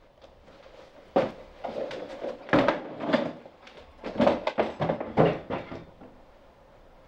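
A run of irregular knocks and clatters, as of household things being handled and cupboards or drawers being knocked. They come in clusters from about a second in until nearly six seconds in, the loudest around a second, two and a half and five seconds in.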